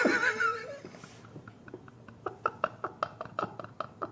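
Two men laughing quietly: a quick run of short, breathy laughs that starts about a second in.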